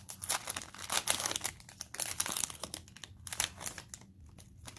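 Foil wrapper of a 2020 Panini Mosaic football card pack crinkling as it is torn open and the cards are slid out. A dense crackle that dies down about four seconds in.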